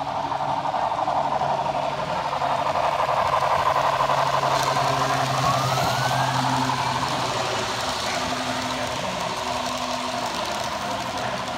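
Model trains running on layout track: a steady rumble and whir of wheels and motors with a low hum, growing louder as two trains pass close by around the middle and easing off near the end.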